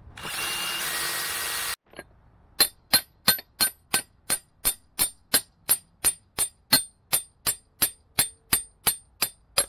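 A hammer striking a steel chisel held against an outboard driveshaft, a steady run of sharp ringing metal-on-metal blows, about three a second, working at a Woodruff key that is rusted fast in the shaft. A short burst of steady noise comes first.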